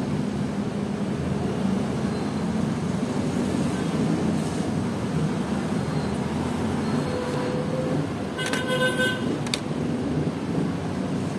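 Steady background road-traffic rumble, with a short vehicle horn toot late on.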